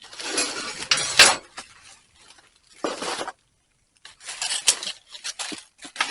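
Rummaging through dumpster trash: plastic bags rustling and hard packaged items clinking and knocking together, in three separate bursts with short pauses between.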